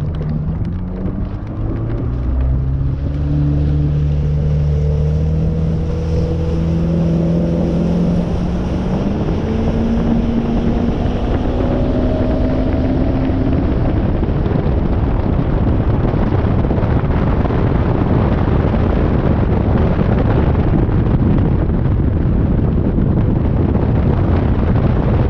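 Bass boat's outboard motor speeding up, its pitch rising steadily over about ten seconds, then giving way to a loud steady rush of wind and water as the boat runs fast across the lake.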